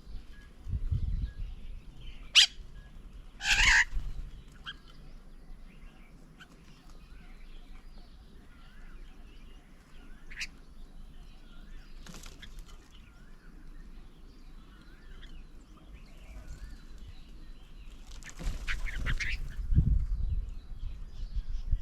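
Assorted small birds chirping and calling around a garden bird table. A sharp click comes about two seconds in and a brief louder rustling burst about a second later, with a low rumble near the start and again near the end.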